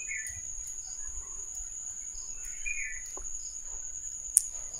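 A steady high-pitched whine runs throughout, with faint wet squishes of a hand mixing pointed gourd pieces into thick rice batter in a steel bowl, and one sharp tick near the end.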